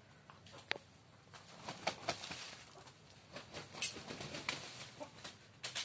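Rooster moving about on brick paving: scattered soft clicks and rustles, with a louder flurry of rustling about two seconds in.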